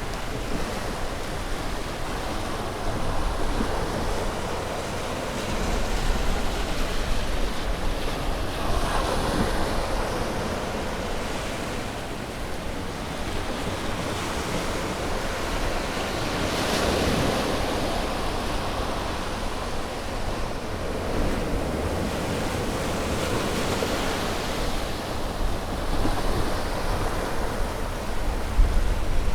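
Sea waves breaking and washing up on a beach, a steady surf hiss that swells with each wave every several seconds, with low wind rumble on the microphone.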